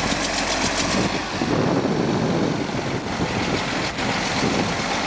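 Case IH Magnum 280 tractor's six-cylinder diesel engine running steadily, heard up close.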